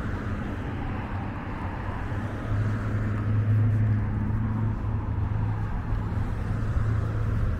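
Road traffic on a multi-lane street: cars driving past, with a low engine hum that gets louder about two and a half seconds in.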